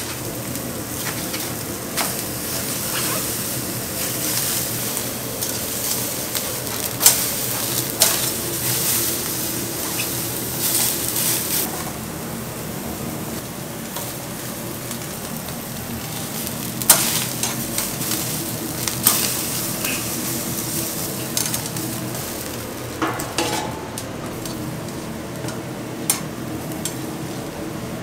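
Chicken and vegetables sizzling on a charcoal grill grate, a steady hiss, with sharp clicks of metal tongs against the grate a handful of times.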